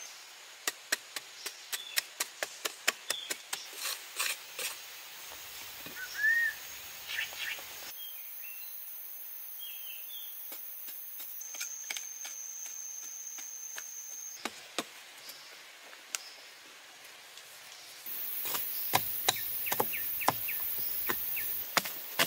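A hand blade striking into hard clay soil over and over while digging, in quick runs of two or three sharp hits a second. A thin steady high insect drone runs under parts of it.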